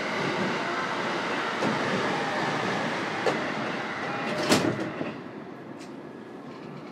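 Running noise inside a JR East E233-series electric train's motor car: wheels rumbling on the rails under a faint steady traction-motor whine. Two sharp clacks over rail joints or points come about three and four and a half seconds in, the second the loudest, and the noise then drops to a quieter run.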